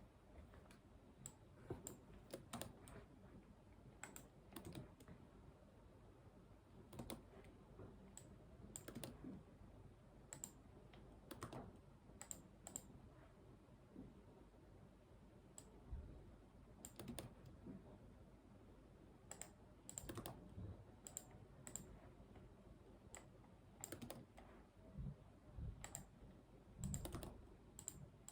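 Computer keyboard typing in short, irregular runs of keystrokes with pauses between them, mixed with single clicks, faint against a quiet room.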